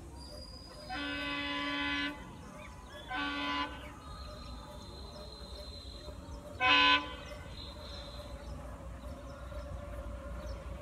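Indian diesel locomotive's air horn sounding from an approaching train: one long blast, then two short ones. Each blast is a steady pitched tone, and the last is the loudest.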